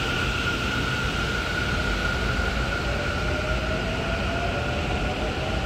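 Taichung MRT Green Line electric train pulling out of the station. Its electric drive gives a whine that rises slowly in pitch as it gathers speed, over steady running noise and a steady high hum.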